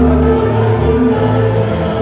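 Music with a bass line that steps from note to note about twice a second under held chords, with light percussion ticks.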